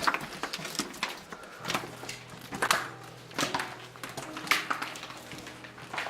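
Footsteps crunching and scuffing over debris, about one every second, with a faint steady hum and held tones beneath them.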